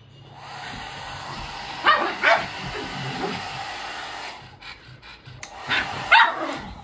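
A hair dryer blows steadily and cuts off after about four seconds, while a pug barks at it twice, then twice more after it stops.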